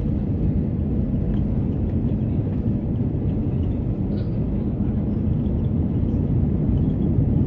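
Jet airliner on its takeoff roll, heard from inside the passenger cabin: a steady low rumble of engines and runway wheels, growing a little louder near the end.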